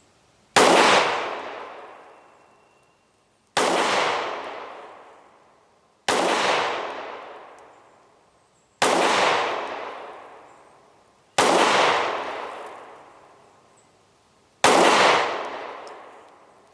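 Kel-Tec PR-5.7 pistol firing 5.7×28mm rounds: six single shots spaced about two and a half to three seconds apart, each followed by a long echoing tail that dies away before the next.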